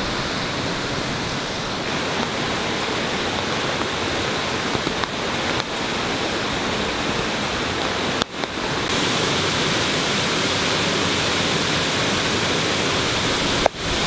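Steady rushing noise of a waterfall, interrupted by two brief drop-outs, about eight seconds in and just before the end.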